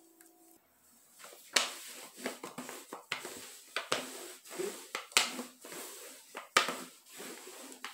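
Rolling pin worked back and forth over bread dough on a countertop: a string of irregular knocks and rubbing strokes, starting about a second in, roughly one or two a second.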